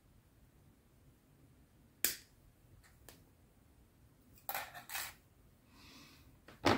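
A few sharp clicks from small plastic model-kit parts being handled and fitted: one about two seconds in, a quick cluster of clicks around the middle, and another near the end.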